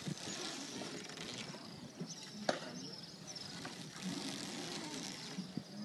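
Oars of a hand-rowed boat knocking in their locks about every three seconds as the boatman pulls through the water.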